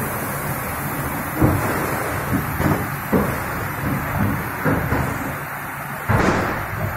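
Plastic injection machine running with a steady mechanical noise, broken by about five short clunks, the loudest near the end.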